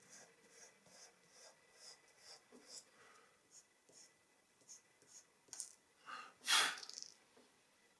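Dry pastel stick scratching on thin paper in short, quick strokes, about two to three a second at first and then sparser, with one louder, longer swish about six and a half seconds in.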